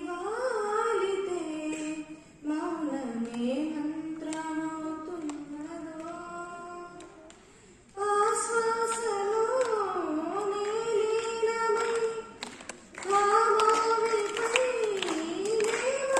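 A girl singing solo and unaccompanied, holding long notes that slide up and down, in three phrases with short breaths between them.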